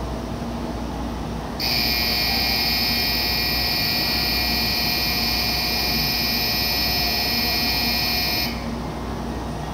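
Shinkansen platform departure bell ringing steadily for about seven seconds, starting a couple of seconds in and cutting off suddenly: the signal that the train is about to leave.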